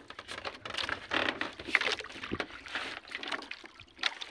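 Water sloshing and splashing against the hull of a small outrigger boat, in irregular surges with no engine running.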